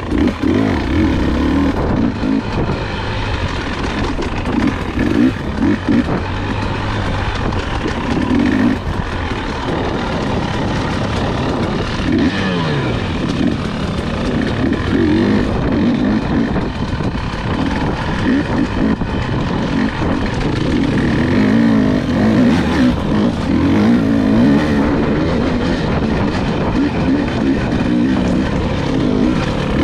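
Husqvarna dirt bike engine heard from on board, revving up and down continuously with the throttle as it rides a twisting trail.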